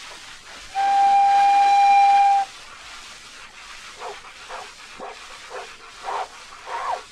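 Train-whistle effect on an acoustic 78 rpm shellac record: one steady whistle blast about a second in, lasting under two seconds, over constant record surface hiss. In the second half comes a run of short rising tones, about two a second.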